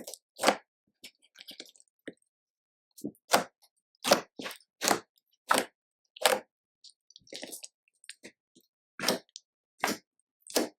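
Slime being squeezed and kneaded by hand, giving short wet squelching pops and clicks that come irregularly, about one every half second to a second, with a quieter patch about a second in.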